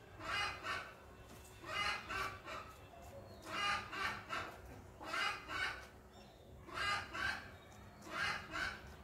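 A domestic hen calling, short two-to-three-note clucks repeated about every second and a half.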